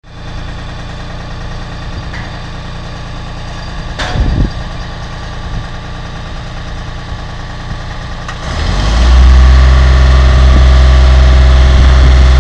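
Construction machinery's engine running steadily, then revving up and running much louder from about eight and a half seconds in, as for a lift. A single sharp knock about four seconds in.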